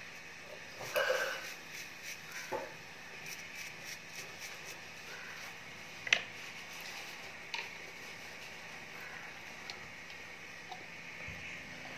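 Faint hand-work noises: small metal clicks and taps of fine tweezers on a tiny gold earring piece, a handful of isolated clicks with the sharpest about six seconds in, over low steady room noise. A brief rustle about a second in.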